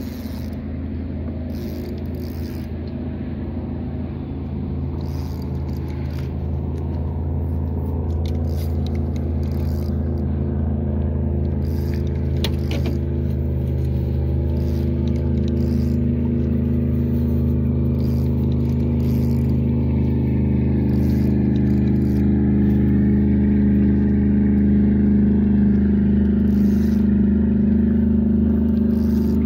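Outboard motor of a small fishing boat running steadily, slowly growing louder with its pitch rising a little about halfway through. A few light clicks and rustles of handling over it.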